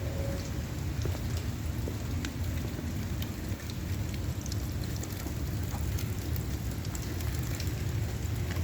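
Heavy rain falling steadily, with scattered sharp drops ticking and a steady low rumble underneath.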